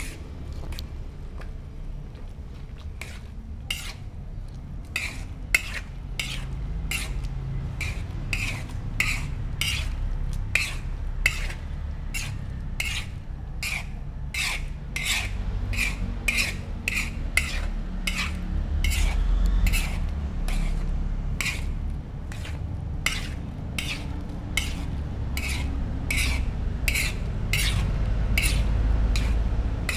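A metal spoon stirring and scraping long beans and potatoes in a little liquid in a large metal wok. The strokes start a few seconds in and run at about two a second, over a steady low rumble.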